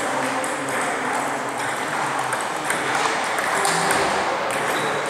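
Celluloid-style table tennis balls clicking off rubber-faced bats and the table top in a rally, with more ball clicks from other tables in the sports hall mixed in.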